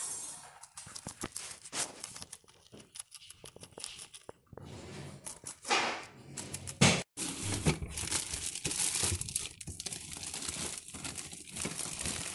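Guinea pig biting and chewing iceberg lettuce close up: crisp crunching and tearing of the leaves, with a brief break about seven seconds in.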